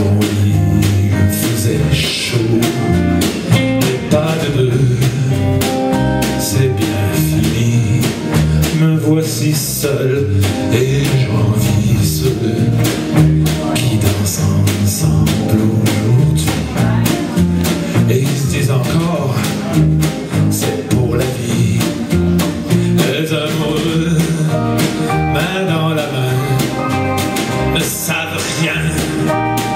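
A band playing a song live, with guitar and drums and a voice singing.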